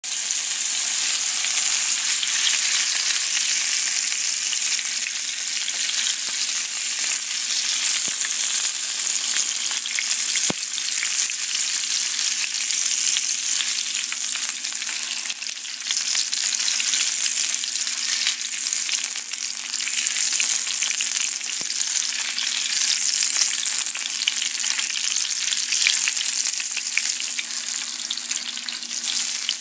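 Food frying in a hot pan: a steady, dense sizzle full of crackling spits, with a faint steady hum underneath and a few sharp clicks.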